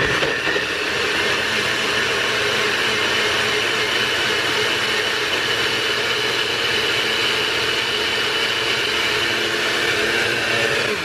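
Personal bullet-style blender motor running steadily at full speed, blending frozen fruit, greens and orange juice into a smoothie; it switches on at once with a loud, even whine.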